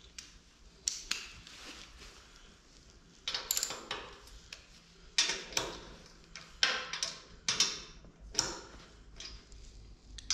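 Socket ratchet clicking in short runs while a vise-jaw bolt is tightened, with light clinks of the steel socket on the bolt.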